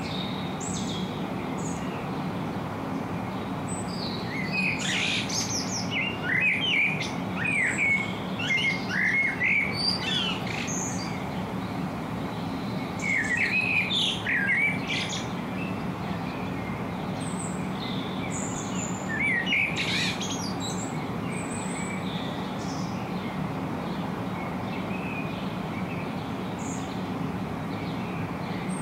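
Wild birds singing, quick chirping notes that rise and fall, coming in three main bouts over a steady low background hum.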